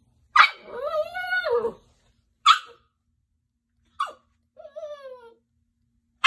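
Goldendoodle puppy barking at its own reflection in a mirror. It starts with one long howling bark that rises and falls in pitch, then gives two short sharp barks and a brief whine that falls in pitch, and barks again right at the end.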